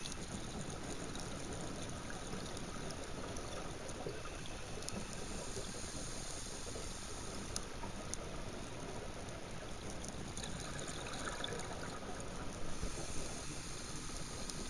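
Underwater noise picked up by a camera in its waterproof housing: a steady, muffled water hiss with a few faint clicks scattered through it.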